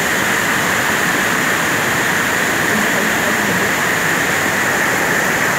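A river in flood rushing over rocks: a steady, loud rush of water.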